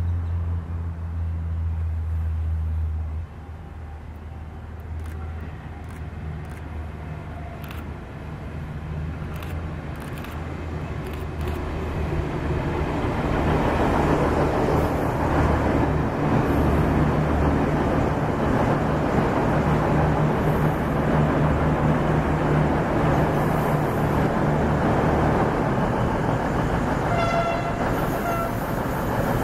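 V/Line VLocity diesel multiple unit approaching and passing through the station, its diesel engines and wheels on the rails building to a loud steady rumble as the cars go by. A short horn toot sounds near the end.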